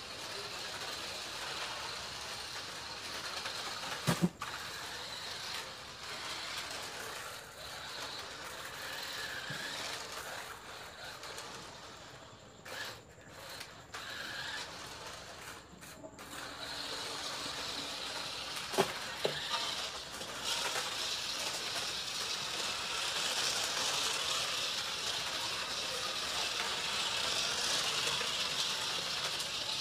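Radio-controlled toy LaFerrari's small electric motor and plastic gears whirring as it drives over a concrete floor, with two sharp knocks, about four seconds in and again past halfway, as it bumps or tips over.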